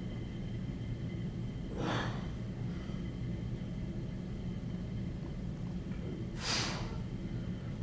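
Two short, forceful breaths out from a bodybuilder straining through his poses, one about two seconds in and another about six and a half seconds in, over a steady low hum.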